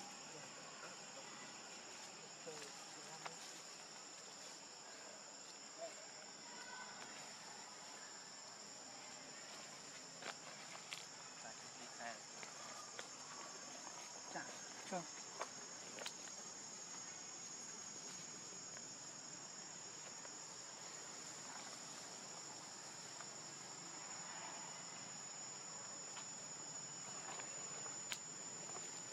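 Steady, high-pitched drone of insects, with occasional faint clicks and rustles of leaf litter.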